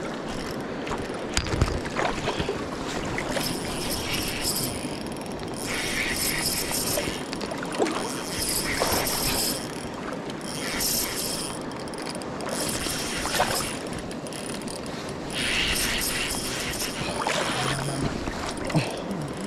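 Spinning reel clicking and whirring in repeated bursts of a second or two, as line is given and reeled back in on a hooked summer steelhead.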